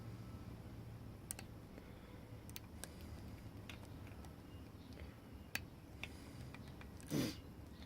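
Lock pick and tension wrench working the pins of a five-pin Guard padlock, giving a few scattered soft clicks. Near the end comes a short, louder rush.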